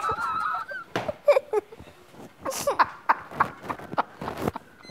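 A man and a young girl laughing together in repeated bursts of laughter.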